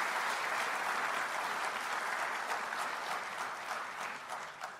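Large audience applauding, a dense even clapping that dies away near the end.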